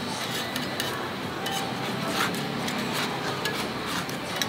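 Scattered light clinks and taps of cooking utensils at a street-food griddle, over a steady hiss.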